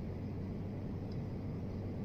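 Steady low background hum with no distinct sounds on top of it.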